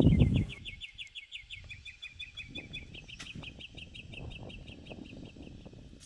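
A rapid, even series of high chirps, about eight a second, running throughout. A loud burst of rustling and knocks in the first half second gives way to faint rustles and clicks.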